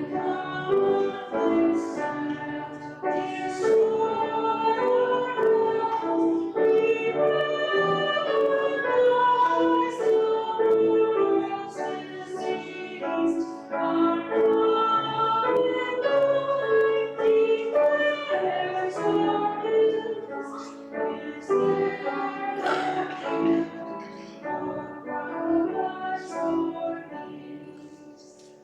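Church music: singing with instrumental accompaniment, sustained notes moving from phrase to phrase, fading toward the end.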